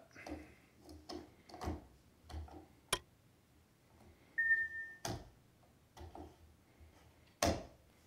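Plastic knife clamp being handled and slid into the holder of a Work Sharp Precision Adjust sharpener: soft scraping and rubbing, a sharp click about three seconds in, and a brief high squeak at about four and a half seconds.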